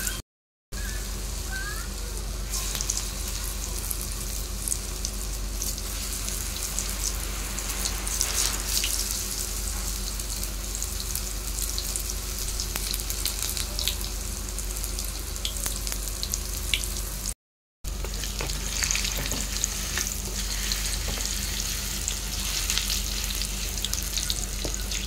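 Bottle-gourd pakora batter deep-frying in hot oil in a kadai: a steady sizzle with scattered crackles, dropping out briefly twice.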